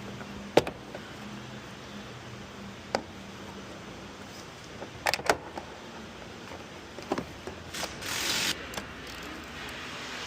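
Sharp clicks and knocks from hands and tools working on a car: half a dozen single impacts spread out, with a short hiss about eight seconds in. A faint steady hum runs under the first three seconds.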